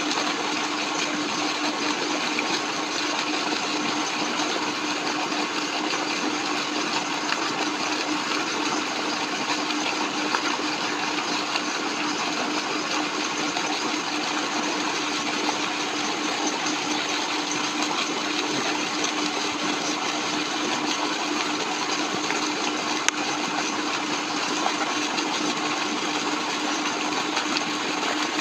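Steady machine hum, even and unbroken, with a constant low tone running through it.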